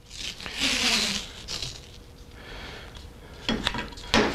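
Wide tape being peeled off its roll with a rasping rip and stretched over a brake shoe's lining, then torn off the roll with a few sharp crackles near the end.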